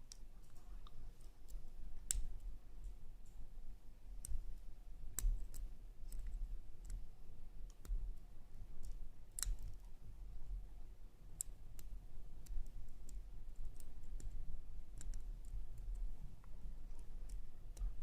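Pick and tension wrench working the pins inside a brass shutter padlock: scattered, irregular light clicks and scrapes as the pick lifts and sets pins.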